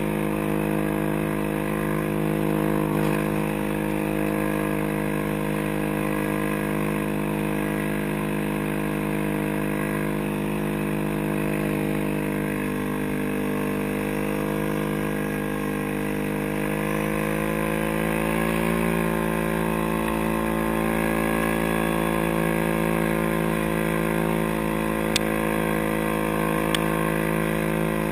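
Track-equipped ATV engine running steadily under way; about two-thirds through its pitch rises as it speeds up, then holds. Two short clicks near the end.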